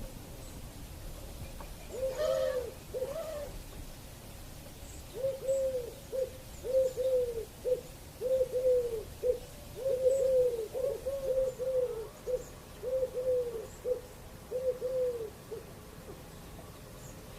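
Dove cooing: two coos, then a long run of repeated coos about two seconds later. Each coo is a low note that rises and falls, with short clipped notes between them, lasting about ten seconds.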